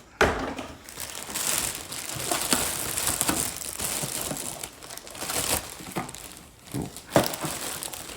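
Packaging being crinkled and pulled off a new record player, a continuous rustling and crackling, with a few light knocks and one sharper knock near the end.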